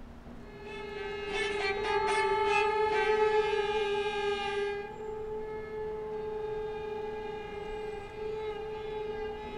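A held drone of several steady pitched tones, like a sustained synthesizer chord in a film score. It swells in over the first second and has a brighter, busier upper layer from about one to five seconds in.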